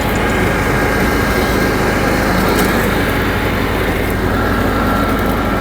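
John Deere 170 riding lawn mower engine running steadily.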